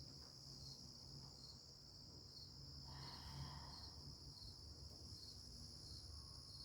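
Faint, steady high-pitched chirring of crickets, an insect chorus.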